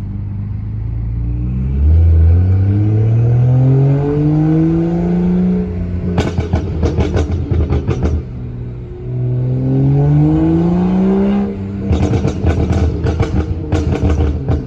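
BMW F10 on an MHD stage 0 burble tune: the engine revs up twice, climbing steadily in pitch. Each time, on lift-off, comes a rapid string of exhaust pops and crackles from the burble map.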